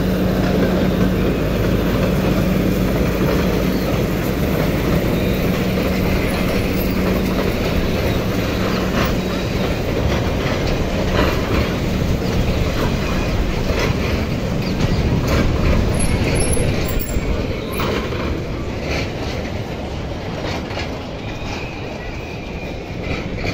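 Amusement-park mini toy train, pulled by a replica steam locomotive, passing close by: a steady hum from the locomotive, then its carriages rattling along the rails with scattered clicks. The sound fades near the end as the last carriages go past.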